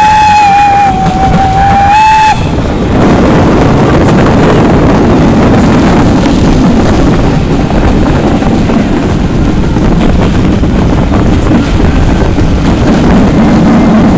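Steam tank engine's whistle blowing one long, slightly rising note that cuts off about two seconds in, followed by the steady rumbling, rushing noise of the train running, heard from a carriage window.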